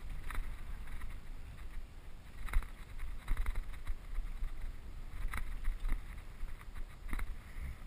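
Mountain bike riding down a rough dirt trail: steady low wind rumble on the microphone with irregular rattles and knocks as the bike jolts over bumps.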